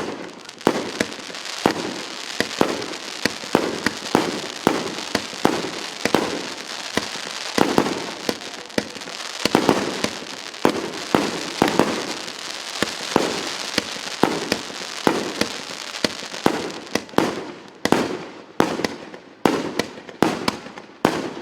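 A 150-shot 1.2-inch firework cake firing shot after shot, about two launches a second. Each is a sharp pop over a continuous hiss and crackle from the bursting stars. Near the end the shots come with quieter gaps between them.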